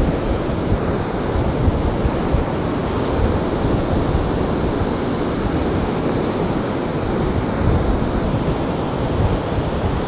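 Heavy storm surf breaking and washing up the beach, mixed with strong wind buffeting the microphone: a loud, steady rush of noise with an uneven low rumble.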